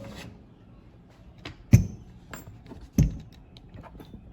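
Metal parts and hand tools knocking and clinking on a mini metal lathe as its alignment screw is adjusted by hand: scattered small ticks, with two sharp knocks a little over a second apart near the middle.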